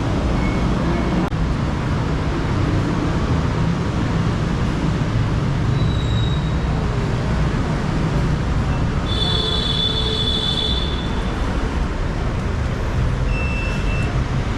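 Steady low rumble of vehicle noise, with a brief high-pitched squeal about two-thirds of the way through.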